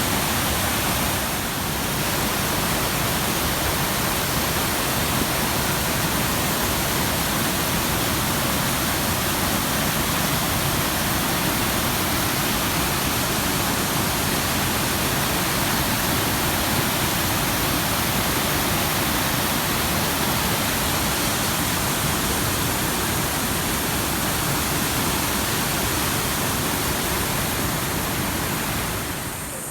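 Waterfall pouring over rapids: a steady, even rush of falling water.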